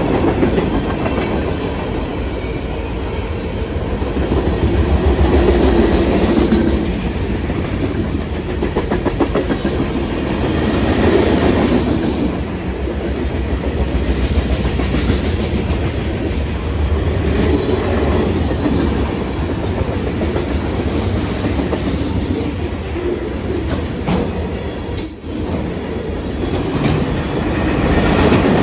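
Freight train cars rolling past, a steady rumble with the clickety-clack of wheels over rail joints.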